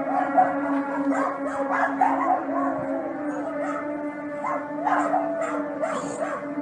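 Several dogs barking and howling in repeated bouts. Under them runs a steady low hum.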